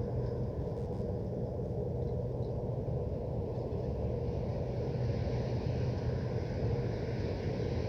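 Steady low industrial hum and rumble from foundry machinery, with a constant droning tone. A hiss over it grows louder about halfway through.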